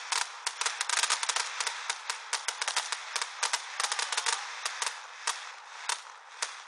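Fireworks crackling: a dense run of sharp cracks and pops in rapid succession that thins to a few scattered cracks over the last couple of seconds.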